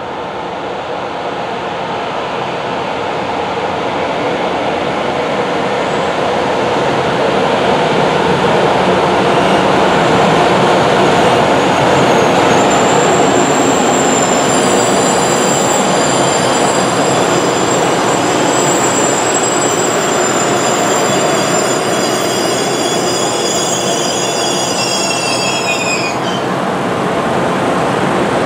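Locomotive-hauled train rolling through a station: the steady rumble of wheels on rail grows louder as it approaches and passes. About halfway in, a high wheel squeal of several piercing tones joins it and cuts off suddenly a couple of seconds before the end.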